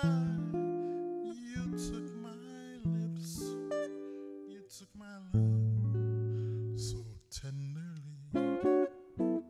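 Solo archtop acoustic guitar played fingerstyle: plucked bass notes and chords that ring out and decay, with a quick run of short picked notes near the end.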